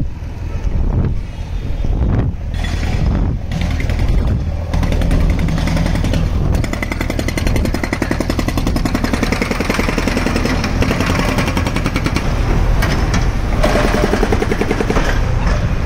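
Construction machinery at work: a steady low engine rumble, with a rapid, even hammering rattle coming in about five seconds in and continuing.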